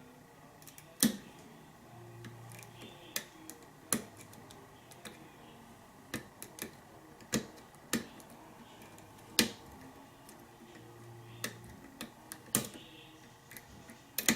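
Lock pick and tension wrench clicking in a pin-tumbler lock during single-pin picking: sharp, irregular metallic clicks, about a dozen over the stretch, as the picker works the pins while searching for the last one.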